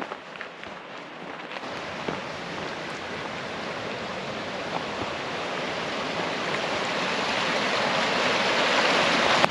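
A rushing mountain creek, an even roar that grows steadily louder as it is approached. A few footsteps on the dirt trail are heard in the first second or so, before the water noise comes up.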